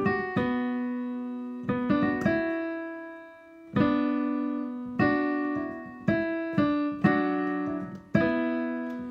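Piano playing a slow intro of struck chords, each left to ring and fade before the next, about nine or ten chords in all.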